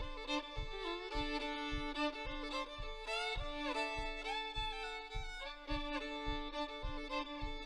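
Two fiddles playing a fiddle tune together: a steady drone note sounds under a melody with slides between notes. A low thump keeps the beat, a little under twice a second.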